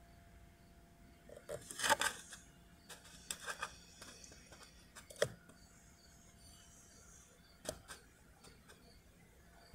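Handling noise from a phone held low behind a car dashboard: a few clicks and rustles, loudest about two seconds in and again about five seconds in, over a faint steady tone.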